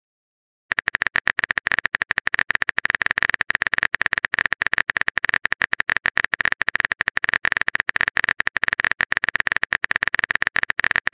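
Rapid typing sound effect: a dense, unbroken run of quick keyboard clicks starting about a second in, as a long text message is composed.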